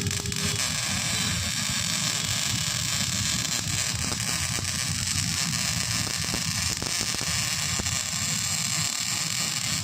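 Electric arc welding: a steady crackling hiss that keeps up without a break.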